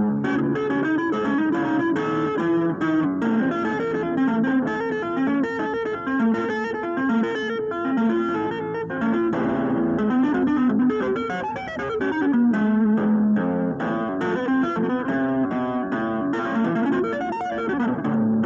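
Electric guitar played with two-handed tapping on the fretboard: a fast, continuous stream of neoclassical runs and arpeggios that stops right at the end.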